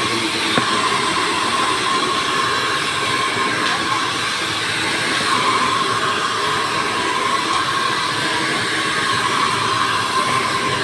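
Handheld hair dryer running steadily: a constant rush of blown air with a steady whine, held close while it dries the hair.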